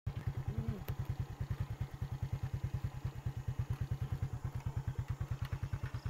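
Motorcycle engine running with a fast, even throb that starts abruptly at a cut.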